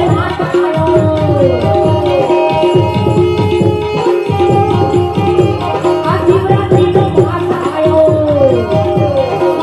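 Tabla playing a busy rhythm, its strokes sliding up and down in pitch, over a held harmonium note: an instrumental passage of a devotional bhajan with no singing.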